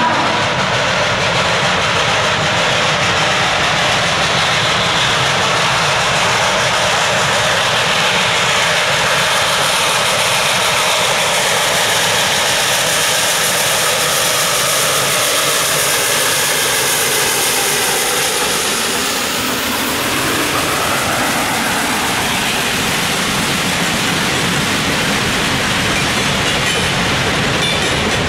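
Baldwin 2-8-0 Consolidation steam locomotive No. 734 working a freight train as it approaches and passes, its sound dropping in pitch as it goes by about two-thirds of the way in. Freight cars then roll past.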